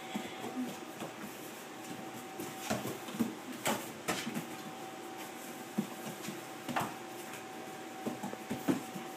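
Walker hound puppy playing with a broom on a vinyl floor: broom bristles scraping and sweeping, paws scrabbling, with a few sharp knocks.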